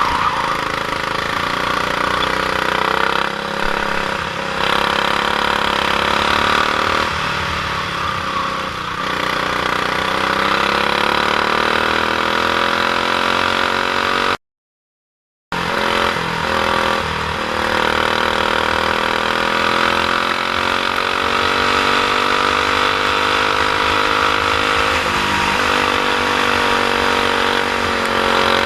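Kart's stock Honda GX390 single-cylinder four-stroke engine running under racing load, its pitch repeatedly rising and falling as it revs up and eases off. The sound cuts out completely for about a second just past the middle.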